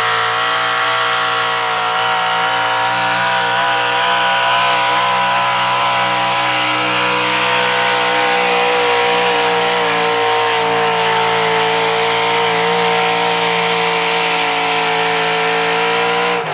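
Super stock 4x4 pulling truck's engine held at high revs under full load through its hood-mounted exhaust stacks as it drags the pulling sled. A loud, steady high-pitched drone that rises slightly at the start and drops off sharply near the end as the throttle comes off.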